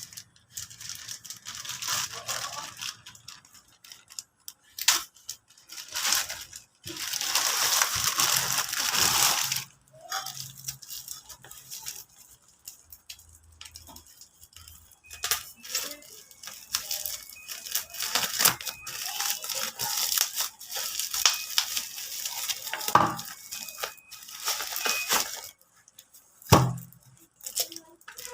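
Packaging being torn open and crinkled by hand, in repeated rustling tearing bursts with scattered clicks, and a sharp thump near the end.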